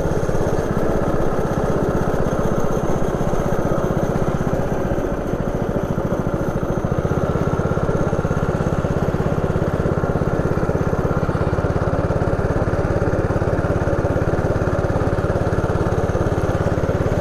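160 cc single-cylinder go-kart engine running as the kart is driven round the track, heard close up from the kart itself. Its note sags about five seconds in and picks up again a couple of seconds later.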